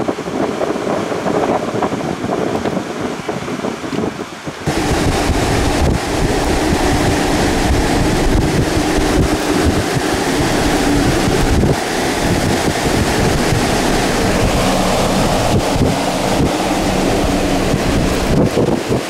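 Strong thunderstorm wind blasting the microphone as a loud, steady rushing roar. About four and a half seconds in it suddenly gets louder and fuller.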